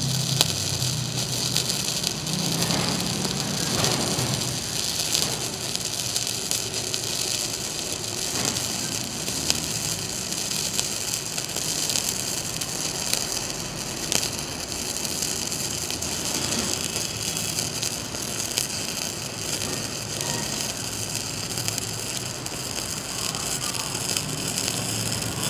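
MIG welding arc from a Sasuke 200 Pro mini MIG welder laying a continuous bead on thin-walled steel box tubing. It gives a steady sizzle with fine crackles all through.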